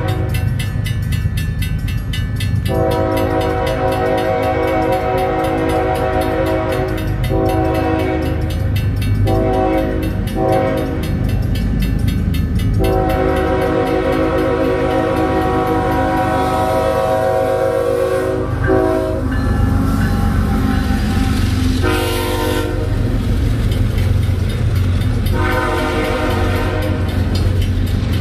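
Diesel freight locomotive's air horn sounding a series of long and short blasts for a grade crossing over the low rumble of the approaching train. A crossing bell rings quickly through the first half. Near the end the loaded flatcars roll past with wheels clacking on the rails.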